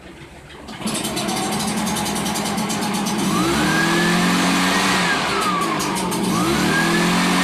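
Echo PB-500 backpack blower's two-stroke engine starting suddenly about a second in and running, then revved twice: the whine rises, holds, falls back, and rises again near the end.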